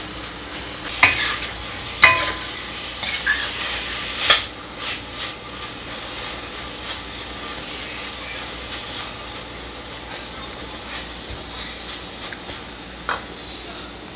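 Green beans and beef stir-frying in a stainless steel wok: a steady sizzle, with a metal spatula scraping and clanking against the pan, hardest in the first few seconds, then only occasional light taps.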